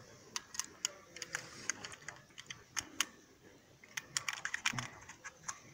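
IMI Desert Eagle pistol being handled to clear a jam: scattered light metallic clicks and rattles of its parts, with a quicker run of clicks about four seconds in. The jam followed a too-light grip that let the pistol flip up in recoil.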